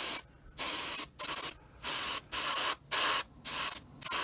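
Gravity-feed airbrush spraying primer in short bursts, about two a second, each a hiss lasting under half a second as the trigger is pressed and let go.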